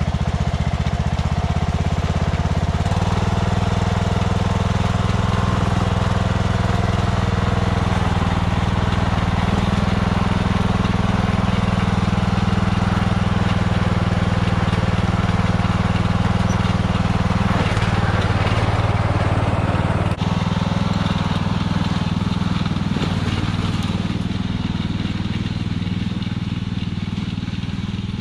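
Riding lawn tractor's engine running steadily as the mower is driven, its pitch stepping up slightly about three seconds in. There is one brief knock about two-thirds of the way through.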